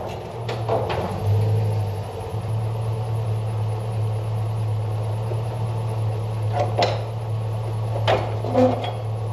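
A few scattered metal clanks and knocks over a steady low hum, from a snowplow being hooked up to a pickup truck. The knocks come twice about half a second in and then several times in the last three seconds.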